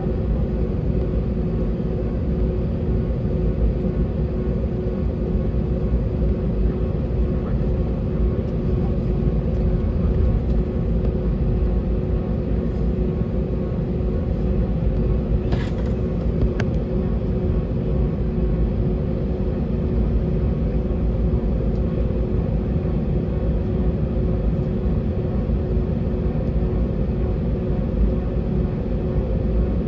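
Cabin noise of an Airbus A320-family jet taxiing: a steady engine rumble with one constant tone over it. A brief click about halfway through.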